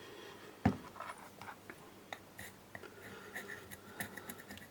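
Light handling of small metal engine parts on a workbench: one sharp knock about 0.7 s in, then faint ticks, taps and light scraping.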